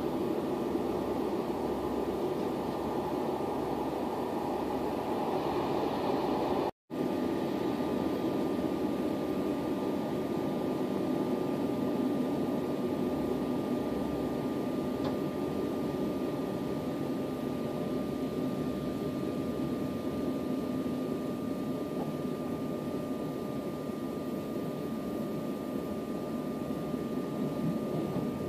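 Steady rumble of a moving train heard from inside the carriage. The sound cuts out for an instant about seven seconds in, and a thin steady whine runs through it after that.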